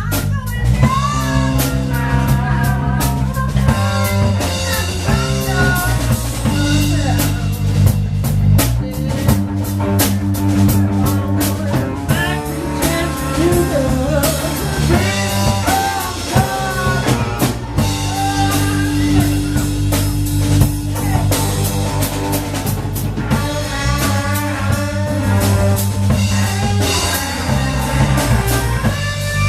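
Live blues band playing: drum kit and electric guitar over a steady low bass line, with melodic lines bending in pitch throughout.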